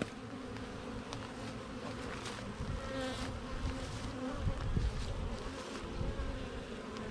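Honeybees from a freshly hived swarm buzzing around the hive in a steady, dense hum; the bees are angry, stirred up after the hive was just worked.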